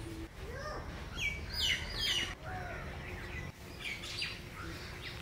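Birds chirping: a few quick, sharply falling calls about a second and a half to two seconds in, then fainter chirps near the end.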